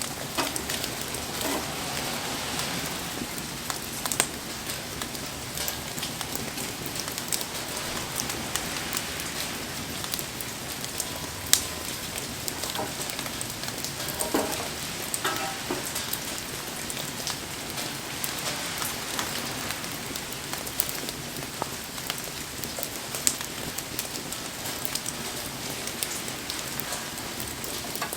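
Steady rain falling on surfaces, with many small sharp clicks and a few louder pops scattered through it from a wood fire burning in the rain.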